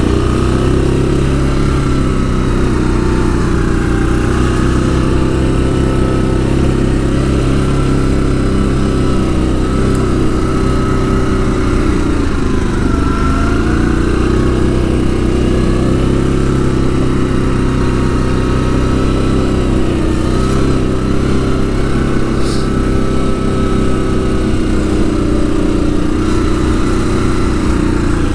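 Yamaha Grizzly ATV engine running steadily while riding, its pitch dipping briefly about twelve seconds in as the throttle eases off, then picking back up.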